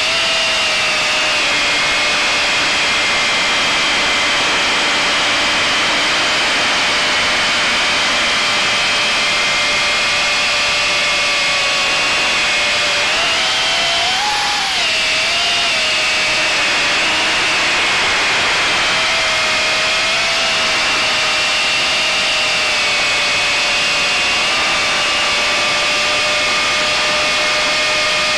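Electric motors and propellers of a small FPV drone whining steadily, heard through its onboard camera, with a brief rise and fall in pitch about halfway through.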